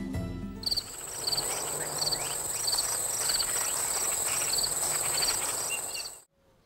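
Field crickets or other singing insects: a steady high trill, with short chirps repeating evenly about one and a half times a second. It cuts off suddenly near the end.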